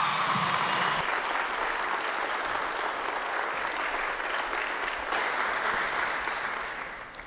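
Audience applauding in a large hall, the clapping trailing off near the end.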